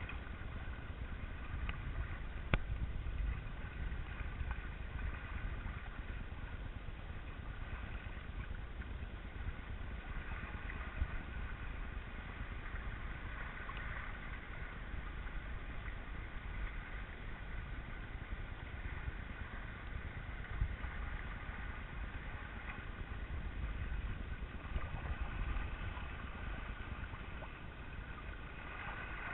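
Water rushing and splashing along a Cross 18 trimaran's hulls under sail, with wind rumbling on the microphone and a faint steady hum underneath. A single sharp knock comes about two and a half seconds in.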